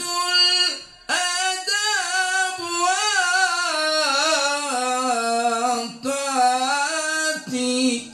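A man singing an Arabic devotional poem solo, drawing one word out into a long ornamented melody of held, wavering notes. He breaks for a breath about a second in and twice briefly near the end.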